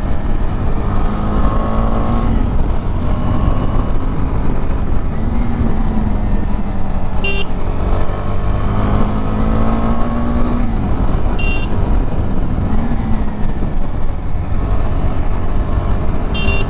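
KTM 390 Adventure's single-cylinder engine running at steady cruising speed, its note rising and falling slightly with the throttle, under heavy wind rush on the helmet or bike-mounted microphone. Three brief high-pitched beeps cut through, about 7, 11 and 16 seconds in.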